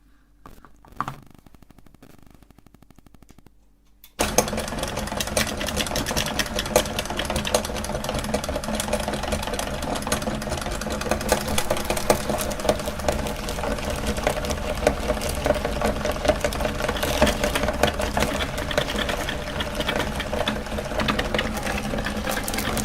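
Meat grinder switched on about four seconds in, then running steadily with a fast mechanical clatter as it grinds ice cream.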